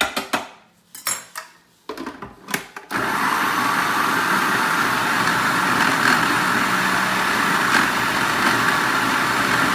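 A few clinks and knocks of a utensil against a food processor's plastic bowl, then about three seconds in, the La Machine food processor's motor starts and runs steadily, chopping onion with salt, pepper and dried herbs into a fine paste.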